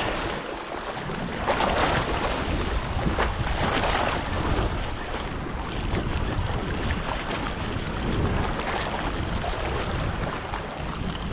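Wind buffeting the microphone in uneven gusts over the wash of sea waves.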